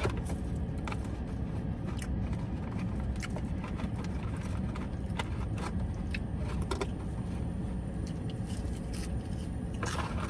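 Someone eating fries between remarks: scattered small clicks and rustles of chewing and handling food and paper, over a steady low rumble.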